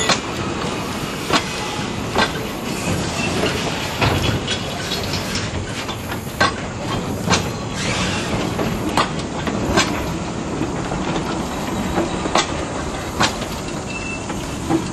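Railroad passenger cars and a caboose rolling past on the track: a steady rumble of steel wheels on rail, with sharp clicks roughly once a second as the wheels cross rail joints.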